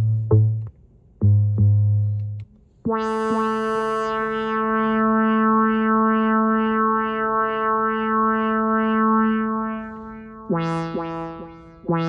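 Minimoog Model D synthesizer tones, sampled into an MPC. Two short low bass notes come first, then a long bright held note whose upper tones waver about twice a second. Near the end it shifts to a new pitch with a couple of quick retriggered notes.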